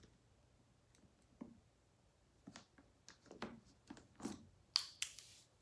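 Plastic markers clicking and knocking against each other as they are handled and picked out by feel: a scatter of light clicks, with a louder clatter near the end.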